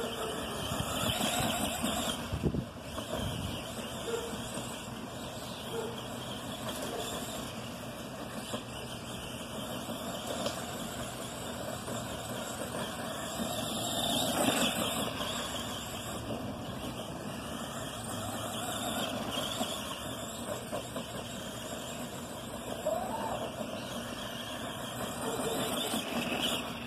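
Arrma Granite Voltage RC monster truck's brushed electric motor running as the truck drives and turns on a grass lawn. It grows loudest about halfway through as the truck passes close, and a short rising whine as the motor revs comes near the end.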